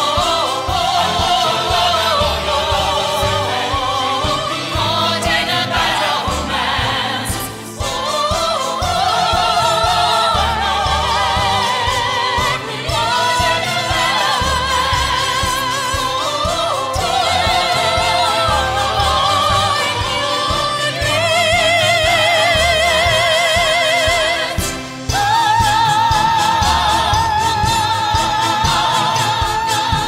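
Choir of nuns' voices and a solo soprano singing a churchy choral arrangement with accompaniment; from about 25 s in, a soprano voice holds a long note with a wide vibrato.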